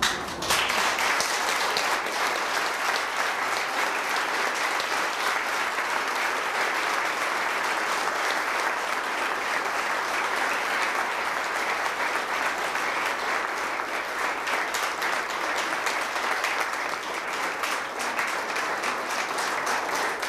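Audience applauding, breaking out all at once and carrying on steadily.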